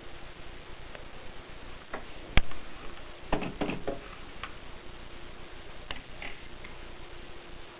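Groma manual typewriter clicking mechanically at irregular intervals: one sharp strike about two seconds in, a quick run of clacks around three and a half seconds, and a few single clicks after.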